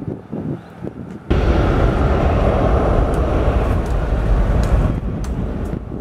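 Twin-engine jet airliner's engines at takeoff power on the runway: loud, steady noise with a deep rumble. It cuts in abruptly about a second in, after a quieter opening, and eases a little near the end.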